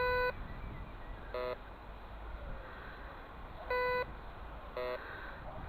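Metal detector giving four short electronic beeps as its coil is swept, alternating between a steadier higher tone (about a third of a second, twice) and a shorter lower tone (twice).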